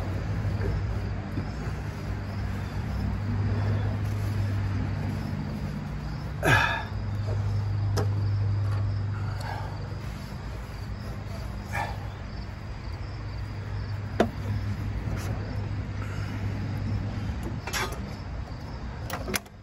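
A few sharp clicks and clinks of engine parts being handled, the loudest about six and a half seconds in. Under them run a steady low hum and insects chirping.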